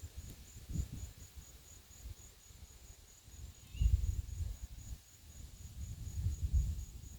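Gusty wind buffeting the microphone in low rumbles, loudest about four seconds in and again around six seconds, over a steady high insect trill that pulses a few times a second.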